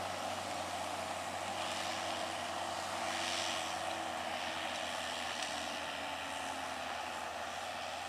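Case IH CVX175 tractor engine running steadily while the tractor pulls a six-furrow Kuhn reversible plough.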